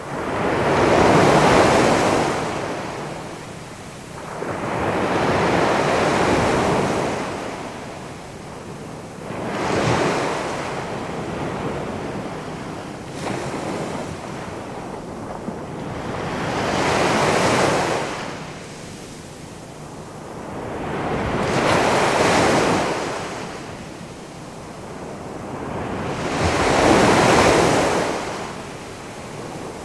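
Big ocean waves rolling in and crashing on the shore, a continuous surging wash that swells and falls about every five seconds, with about six crashes.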